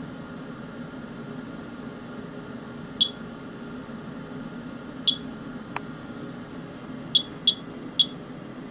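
Geiger counter chirping at random intervals: five short, high beeps a second or two apart, each one a detected radiation count. A steady low hum runs underneath.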